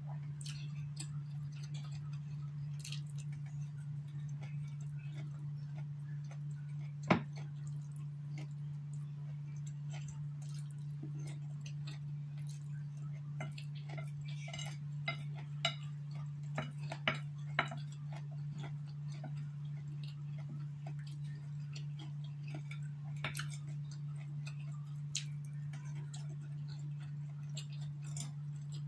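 Chopsticks clicking and tapping against a ceramic plate while noodles are picked up and eaten, at irregular moments: one sharp click about seven seconds in and a run of clicks in the middle. A steady low hum runs underneath.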